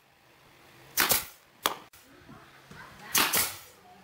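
Pneumatic brad nailer firing nails into pine boards: a sharp shot about a second in and another about two seconds later, each with a short hiss of air, plus a single sharp click between them.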